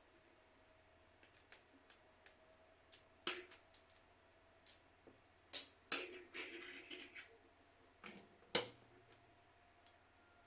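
Small clicks and knocks of plastic parts being handled as a Tuya Zigbee thermostatic radiator valve is taken apart. Three sharper knocks stand out, with a brief scraping rustle in the middle.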